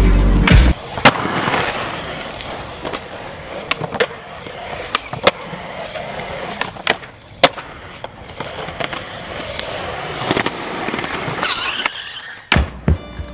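Skateboard wheels rolling on concrete, broken by a dozen or so sharp clacks and slaps of the board popping and landing. Music cuts off about half a second in and starts again near the end.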